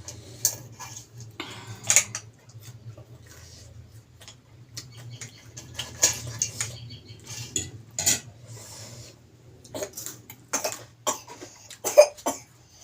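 Cutlery clinking and scraping against dishes during a meal: irregular sharp clicks scattered throughout, over a low steady hum.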